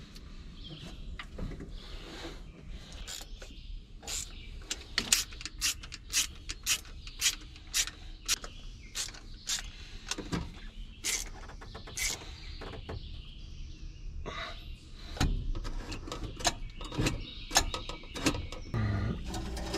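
Irregular sharp metallic clicks and clinks, about two a second, of hand tools and parts while a four-barrel carburetor is fitted back onto the engine.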